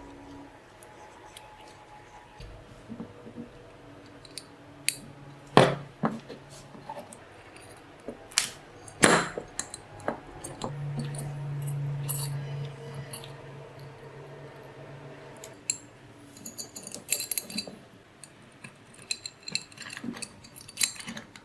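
Small metal engine-kit parts clicking and clinking as a steel shaft and small screws are handled and fitted into the engine base by hand, with a few sharper knocks. A low steady hum runs for about five seconds in the middle.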